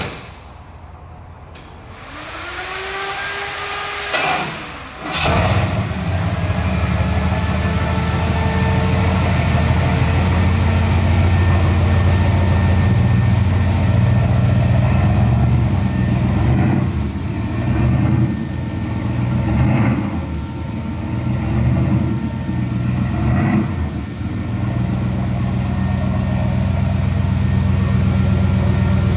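A door shuts, the starter whirs with a rising whine, and the pickup's 460-cubic-inch V8 catches about five seconds in. It idles, is blipped several times, then settles back to a steady idle.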